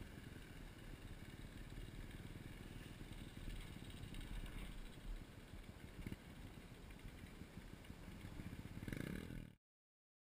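Mini dirt bike engine running on a dirt trail, with a rising rev near the end. The sound cuts off abruptly just before the end.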